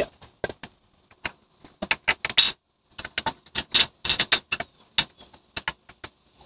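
A new Old Man Emu shock absorber and its mounting hardware clicking and clinking against the metal as it is pushed up into the Jeep's front coil-spring mount: many short, irregular metallic clicks, the loudest about two and a half seconds and five seconds in.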